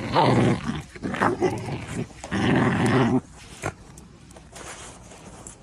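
Small dog growling in several rough bursts as it tugs at its leash held in its mouth, a playful tug-of-war growl. The growling stops abruptly about three seconds in.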